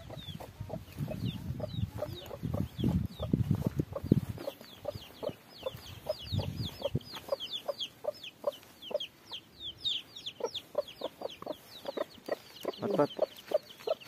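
Chicks peeping busily in rapid, high, falling chirps, with a hen clucking in short repeated notes. A low rumble sits under the first four seconds and then drops away.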